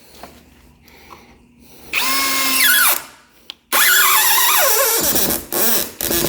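Power drill driving a long screw into a wooden door jamb: the motor whines in four bursts, the first two longer, its pitch dropping as the screw bites and the drill slows under load.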